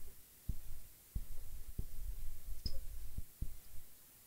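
Irregular dull low knocks and bumps, about seven, from a circuit board and tools being handled on a workbench while capacitors are fitted, with a small sharp tick near the middle.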